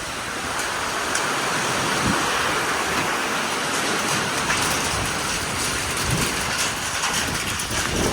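Heavy squall-line rain pouring down in a steady hiss.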